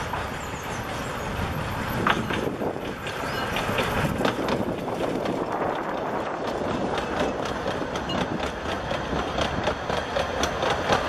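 Narrow-gauge steam train passing close by: the locomotive goes past, then its carriages follow with a rising rumble of wheels on the track. The rumble is broken by rapid clicks over the rail joints, which grow denser in the second half.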